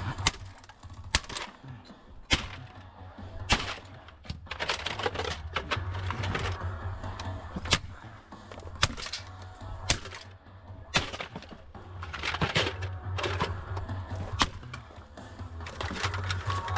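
Background music with a steady bass line, over a series of sharp knocks about a second apart from pieces of scrap metal being tossed and clattering into bins.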